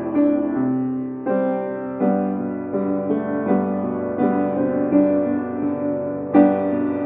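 Slow piano music, with new notes and chords struck about once a second and left to ring.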